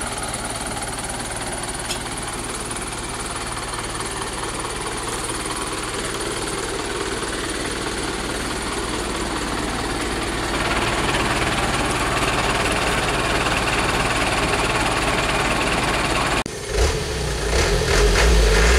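Mitsubishi dump truck's diesel engine running steadily, with the sound getting louder about halfway through. A deep, heavier rumble comes in near the end.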